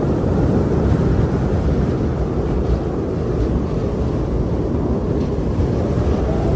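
Strong wind blowing steadily, a deep, constant rumbling rush.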